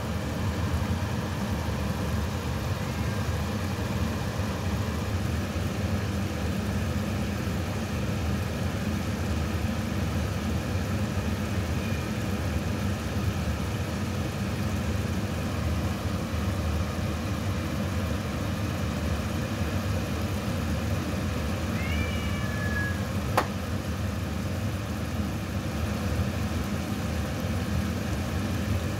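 A steady low mechanical hum with faint steady tones in it. A brief high squeak about 22 seconds in, then a single sharp click.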